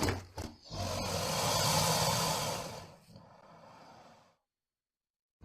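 Crocodile hissing: a sharp burst of breath, a brief second one, then a long breathy hiss with a low rumble under it lasting about two seconds before fading away.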